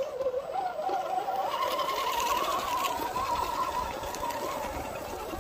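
Electric motor and gears of a radio-controlled scale crawler truck whining as it crawls over rock, the pitch wavering with the throttle. The whine rises about a second and a half in and eases back down near the end.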